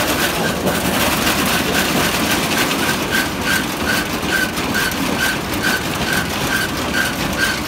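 Kranti multicrop reaper running without crop: a steady machine drone with a rhythmic clatter from the cutter bar and conveyor, about three knocks a second.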